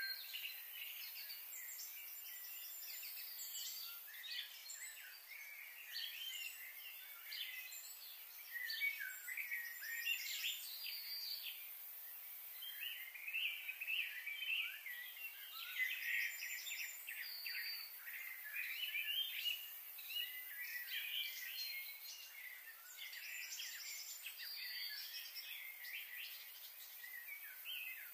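Several birds chirping and calling continuously, a dense chorus of short, high, overlapping calls and trills.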